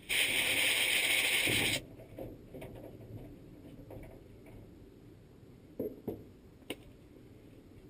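A sudden burst of hissing, about two seconds long, that cuts off sharply, followed by a few light clicks and taps.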